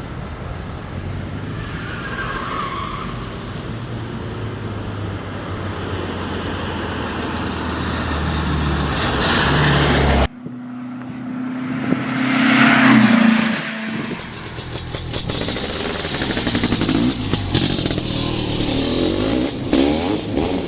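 Motor vehicle engine running steadily, its note slowly growing louder for about ten seconds before cutting off suddenly. Then a vehicle passes loudly a couple of seconds later.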